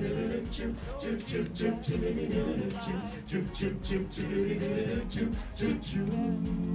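Male a cappella group singing wordless harmonies over a quick, steady beat of mouth-percussion 'ch' hits, with no instruments. Near the end the voices hold a chord.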